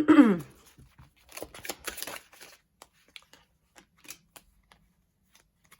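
Tarot cards being handled and shuffled: a brief falling vocal sound at the start, then a cluster of papery rustles and clicks between one and two and a half seconds in, followed by scattered light clicks.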